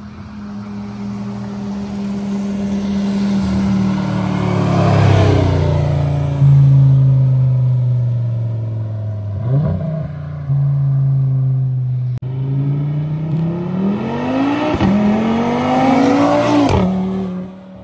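2022 Audi RS3's turbocharged 2.5-litre five-cylinder through an AWE Track Edition exhaust, accelerating hard past on the road. The engine note steps up and down through the gears, climbs strongly near the end and then drops off sharply.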